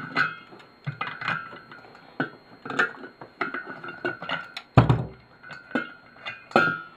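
Brass lamp parts clinking and rattling as they are worked with tongue-and-groove pliers: a string of sharp metallic clicks, many of them ringing briefly, with one heavier knock about five seconds in.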